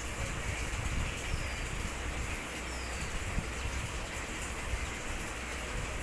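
Steady outdoor background noise with a low rumble. Twice, a bird gives a faint short falling chirp.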